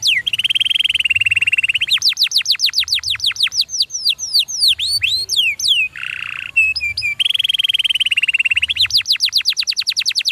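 Domestic canary singing a fast, continuous song, switching every second or two between buzzy trills and rapid runs of repeated sweeping notes.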